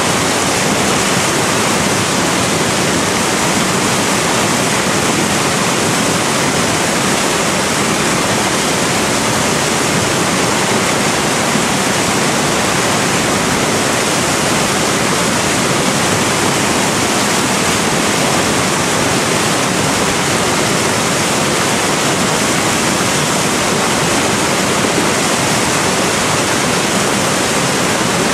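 Loud, steady rushing of a large river rapid: whitewater breaking and churning close by, an even roar with no pauses.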